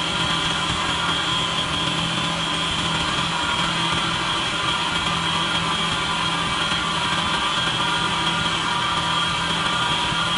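Wood lathe running steadily with a pen blank spinning on its mandrel, a constant high whine over a low hum, during buffing of microcrystalline wax onto the blank with a paper towel.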